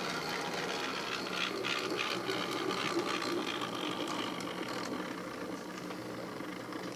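N scale model Shay locomotive running along the track, its small electric motor and gearing giving a steady whir that cuts off suddenly at the end.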